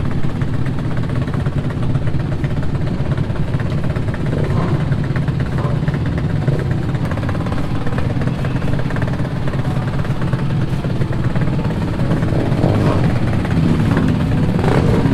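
Motorcycle engines idling in a steady low drone.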